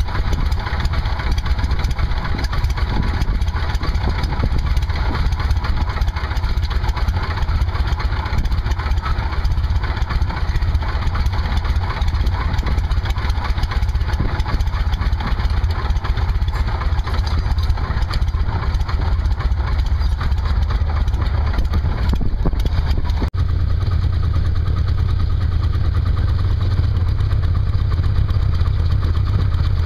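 Aeronca Champ's 90 hp Continental four-cylinder engine running steadily at low, idle-to-taxi power, heard from inside the cockpit. About 23 seconds in the sound briefly dips and then runs on with a deeper, fuller low tone.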